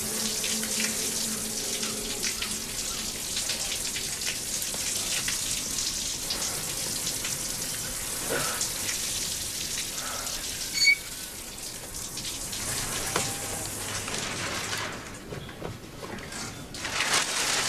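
Shower water pouring steadily from an overhead shower head and splashing on a stone floor. There is one sharp knock about eleven seconds in, and the hiss thins out near the end.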